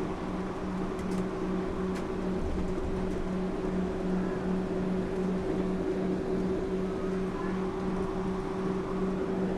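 Interior running noise of a Yurikamome rubber-tyred automated guideway train under way between stations: a steady drive hum over a wash of rolling noise, with a low tone that pulses about three times a second.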